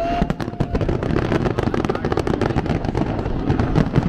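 Aerial fireworks going off in rapid succession: a dense, continuous crackle of many sharp bangs and pops.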